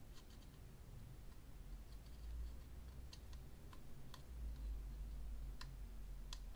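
Faint, scattered light clicks, about eight in all, of fingers handling a plastic miniature and pressing white sticky tack onto its foot, over a low background rumble.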